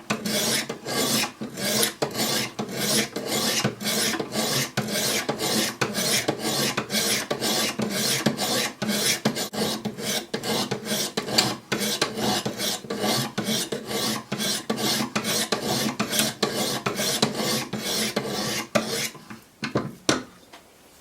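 Wicked Edge 200-grit diamond stones rasping along a D2 steel knife blade in a steady rhythm of quick, even strokes. The strokes stop about nineteen seconds in, with a couple of last light strokes just after.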